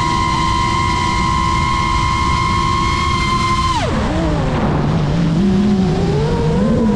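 Geprc Mark 5 FPV quadcopter's brushless motors whining at a steady high pitch, then dropping sharply about four seconds in as the throttle is cut for a dive, wavering low and beginning to rise again near the end. A steady rushing noise runs underneath.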